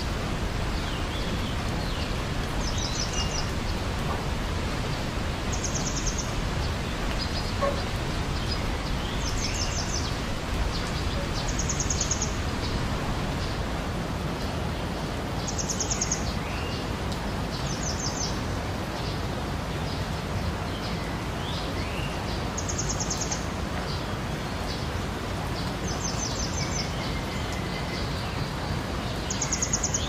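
Steady rushing of flowing water, with songbirds over it: a short, high, rapid trill repeated about every two seconds and scattered chirps.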